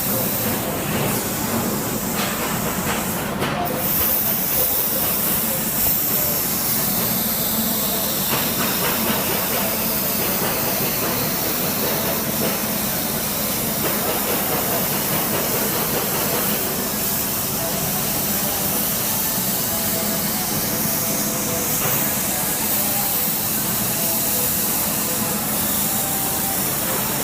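Plasma cutting torch of a CNC plasma cutting table hissing steadily while it cuts through sheet metal.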